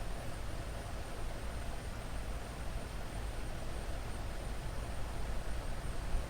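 Steady background rumble with a faint, high, steady tone above it, unchanging throughout.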